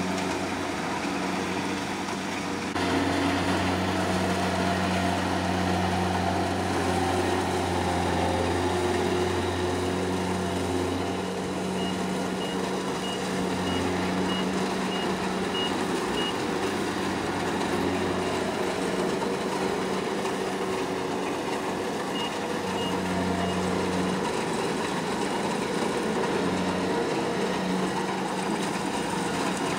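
Kubota combine harvester's diesel engine running steadily, growing louder about three seconds in. Its reversing alarm beeps in a short series about twelve seconds in, and three more times about ten seconds later.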